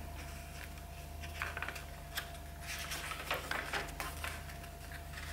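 Pages of a small sketchbook being handled and turned by hand: faint paper rustles and light taps, mostly in the middle of the stretch, over a steady low hum.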